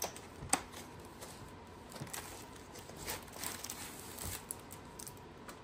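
Faint handling noises from packaging: a soft knock about half a second in, then scattered light rustles as a plastic-wrapped pack of sample material sheets is handled.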